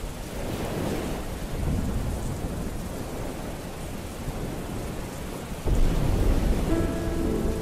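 Steady rain with rumbling thunder. A little before six seconds in a deeper, louder rumble comes in, and near the end soft sustained music notes begin.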